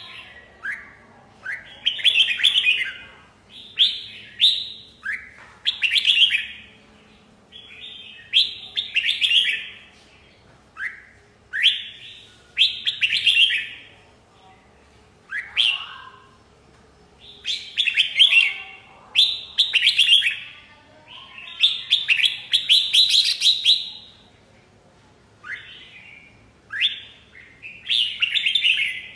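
Red-whiskered bulbul singing: short, loud whistled phrases of quick rising and falling notes, repeated every second or two.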